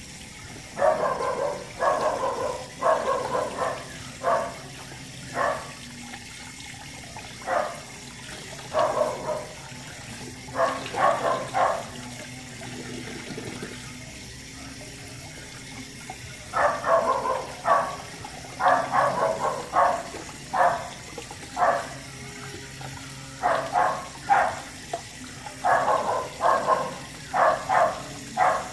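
A puppy being bathed, yelping and whining in short bursts: runs of several quick cries, then pauses of a few seconds. Water trickles faintly underneath.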